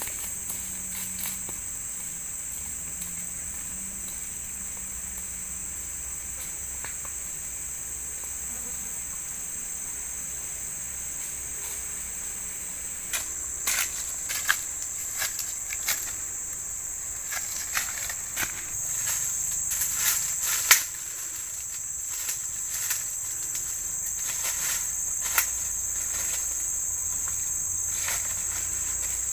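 Steady high-pitched chorus of forest insects, with scattered sharp clicks and knocks joining about halfway through.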